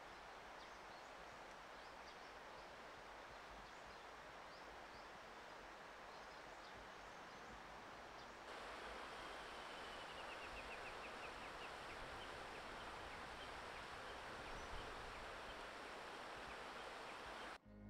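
Faint outdoor ambience: a steady hiss of open air with scattered small bird chirps. About halfway through, the background changes and grows slightly louder, and a bird gives a quick run of short notes falling in pitch.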